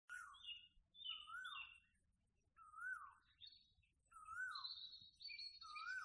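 Red-vented bulbul calling, a short rising-and-falling note repeated about every second and a half, with higher chirps over it and a longer high whistle about halfway through.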